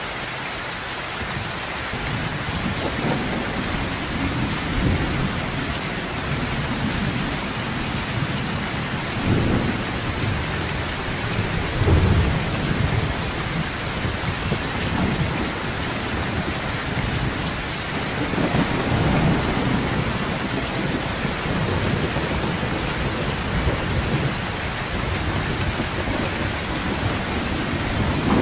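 Heavy rain falling steadily on a sheet-metal roof, with low rumbles of thunder rolling in and fading every few seconds, the strongest about twelve seconds in.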